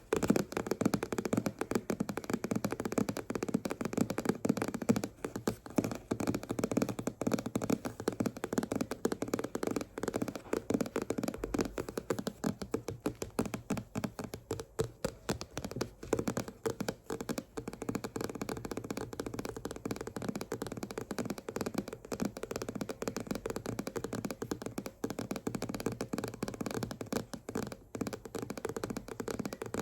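Fingers tapping and scratching on a book as an ASMR trigger: a fast, unbroken run of small taps, many a second.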